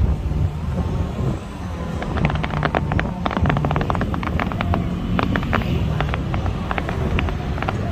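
Fireworks crackling: a dense run of sharp pops and crackles starting about two seconds in and going on steadily, over a low steady rumble.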